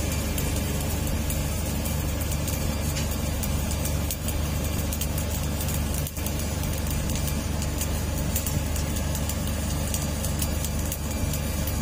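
Electric arc welding crackling and hissing steadily, over a steady low engine hum.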